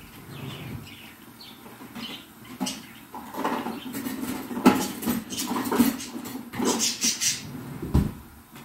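Kitchen clatter: scattered clicks and knocks of utensils being handled at the stove, busier in the second half, over pakoras frying in a pan of oil.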